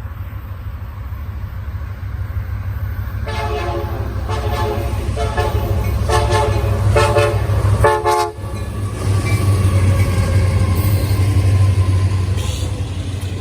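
Diesel locomotive horn sounding a quick series of about six short blasts, each a chord of several tones, over the low rumble of the locomotives' engines. After the last blast the rumble grows louder.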